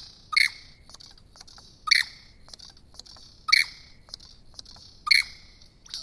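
Male superb lyrebird calling during his courtship display: four loud, sharp notes spaced evenly about a second and a half apart, with faint ticking notes in between.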